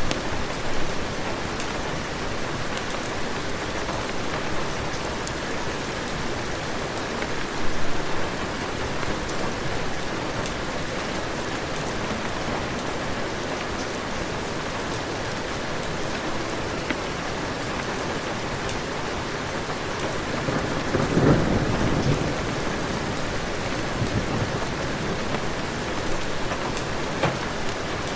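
Heavy rain falling steadily, with a low roll of thunder about three-quarters of the way through that swells and fades over a few seconds.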